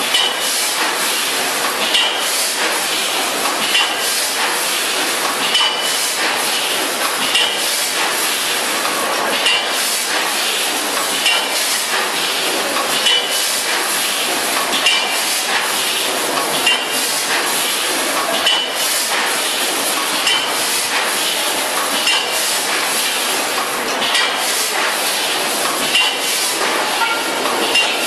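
VFS5000FS twin-lane vertical form-fill-seal granule packing machine running, a steady mechanical clatter with a sharp metallic clank repeating about every two seconds.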